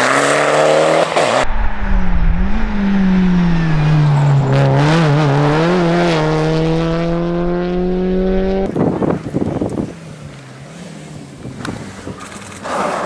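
Rally car engines at full throttle, heard in edited clips. A first car is accelerating away; then a Peugeot 206 rally car's engine revs hard, wavering briefly and then climbing steadily in pitch under load until it cuts off suddenly. The last few seconds are quieter, with bursts of engine and tyre noise from an approaching car.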